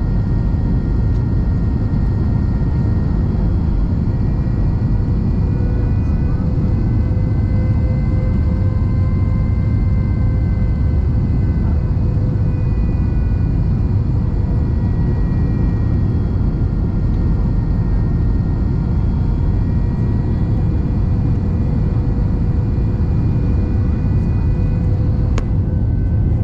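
Steady cabin noise of an airliner in flight: a deep, even rumble of the engines and airflow, with faint steady engine tones over it. A single faint click comes near the end.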